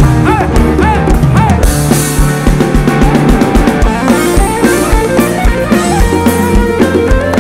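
Rock band playing live through a large outdoor PA: drum kit keeping a steady beat with bass and electric guitars.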